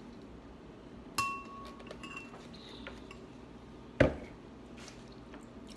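Metal fork clinking against a ceramic bowl: a ringing clink about a second in and a lighter one shortly after. A single louder, duller knock comes about four seconds in.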